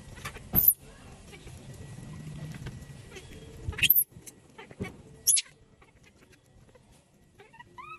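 Baby macaque giving three short, shrill shrieks, about a second in, near the middle and shortly after, as its wet fur is rubbed during a bath, with low rubbing and handling noise between them and a few faint rising squeaks near the end.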